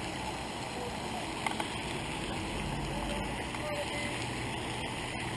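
Steady splashing hiss of a pond's aerator fountain, with two small ticks about one and a half seconds in.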